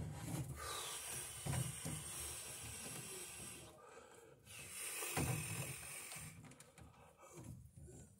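Yellow 12-2 nonmetallic sheathed cable pulled by hand, its plastic jacket rustling and hissing as it slides, in two long pulls with a short pause about four seconds in.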